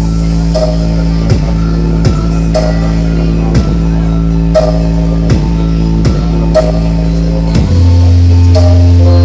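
Dance music played at very high volume through the Kiron 97 horeg sound system, a huge truck-mounted stack of bass cabinets. A heavy sustained bass note sits under a drum beat that falls in pitch, about one stroke every three quarters of a second. Near the end the bass steps deeper and louder.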